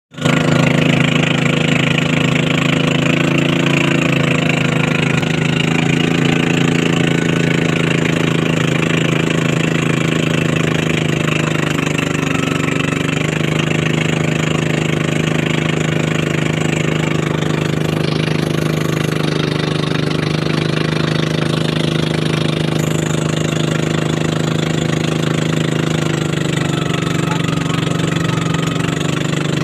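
A small motorboat's engine running steadily under way, its note shifting slightly a few times, over the rush of water along the hull and wake.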